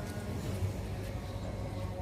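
Background music with steady held notes over a low hum.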